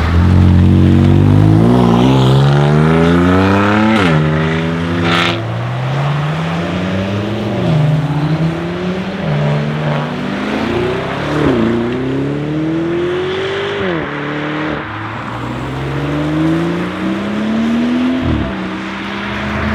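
A 700 hp BMW M2 Competition's twin-turbo straight-six, fitted with TTE740+ turbos and an Akrapovic exhaust, accelerating hard through the gears. The pitch climbs and then drops sharply at each upshift, about six times over, with two sharp exhaust cracks after the first shift.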